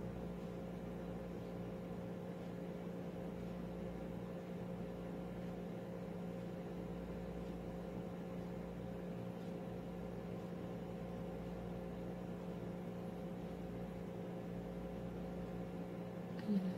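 Steady low hum with a faint hiss, like a running machine, with a brief voice sound just before the end.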